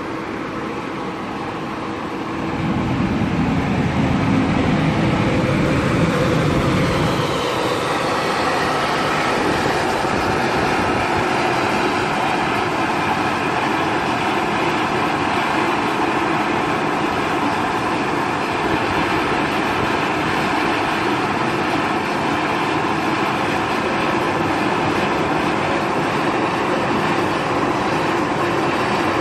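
Industrial exhaust blowers running steadily, pushing coffee-roaster smoke out through metal ductwork. A deeper rumble swells about two seconds in and lasts a few seconds.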